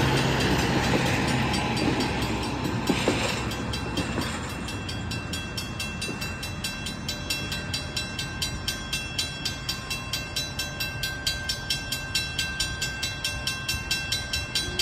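A Harsco rail track maintenance machine rumbles over the level crossing and fades away over the first few seconds. Then the level crossing bell keeps ringing in a steady, regular pattern, a few strikes a second.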